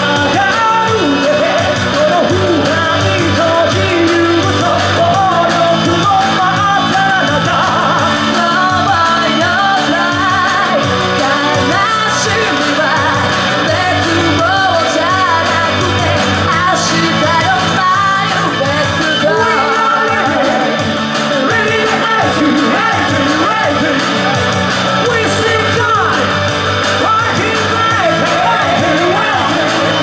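Live rock band playing loud: two vocalists singing, at times in a shout, over electric guitar and drums.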